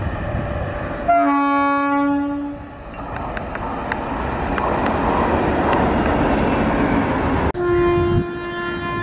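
A WAP-7 electric locomotive's horn blows one long blast of about a second and a half, then the express runs through at speed with a loud rushing rumble and a few sharp clicks from the rails. Near the end the sound changes abruptly and another electric locomotive's horn sounds, held for over a second.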